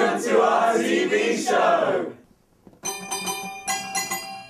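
A group of voices sings together for about two seconds and breaks off. After a brief silence a keyboard-like tune of repeated struck notes starts.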